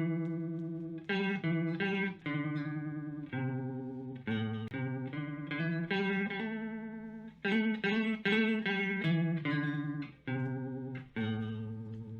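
Electric guitar played through a Moen Jimi Nova univibe-style pedal: a run of picked notes and chords, each ringing and decaying with a wavering, throbbing modulation. The last chord rings out and fades near the end.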